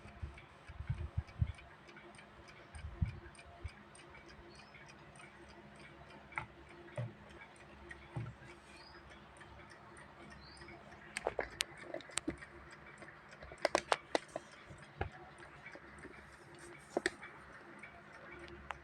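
Vintage mechanical alarm clock ticking with a fast, even beat. Louder clicks and knocks from handling fall in between: low thumps in the first few seconds and a cluster of sharp clicks a little past the middle.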